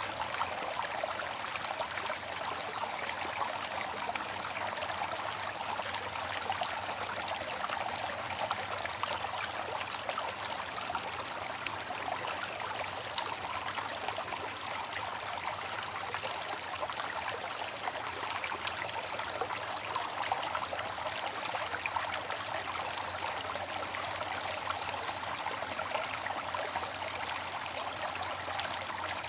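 Water fountain running: a steady splashing trickle of falling water.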